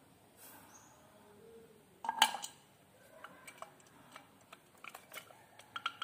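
Clicks and knocks of hard parts being handled as the neck piece is fitted back onto a Ka-band VSAT transceiver's finned housing, with one sharp louder knock about two seconds in and scattered small clicks after it.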